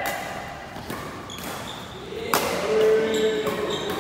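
Badminton racket strings hitting a shuttlecock during a fast doubles rally: several sharp smacks, the loudest a little past two seconds in, with short squeaky tones between them.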